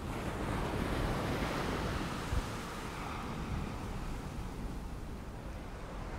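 Ocean surf washing steadily onto a shore, with wind rumbling on the microphone.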